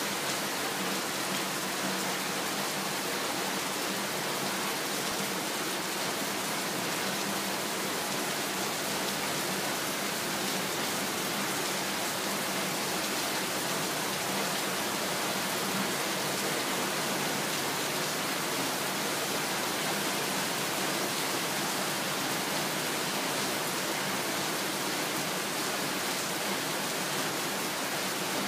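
Heavy rain pouring down steadily: a dense, even hiss that neither builds nor eases.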